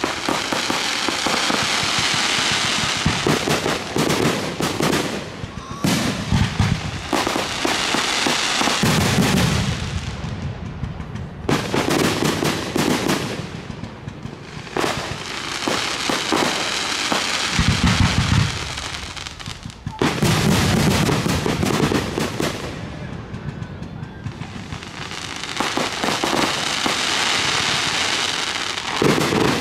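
Fireworks display: aerial shells bursting with several deep booms, between long spells of dense crackling and hiss from crackle effects.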